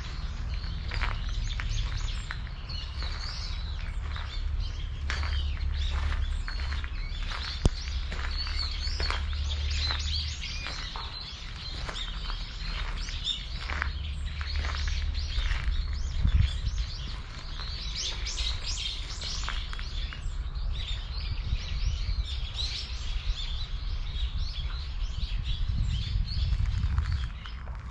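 Small birds chirping and twittering in many short calls, over a steady low rumble, with one sharp click about eight seconds in.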